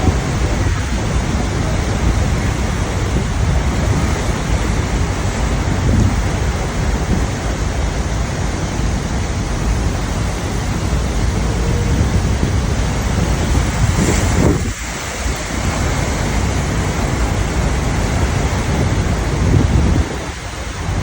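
Steady loud rushing roar of Niagara Falls' falling water and spray, with brief dips about fifteen seconds in and near the end.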